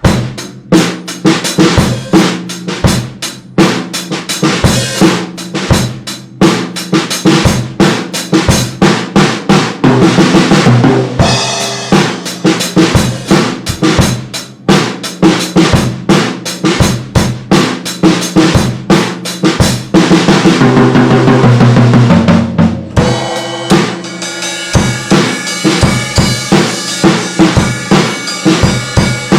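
Yamaha DP series drum kit on its stock Yamaha heads, only barely tuned, played as a continuous stream of beats and fills across bass drum, snare and toms, with cymbals ringing out.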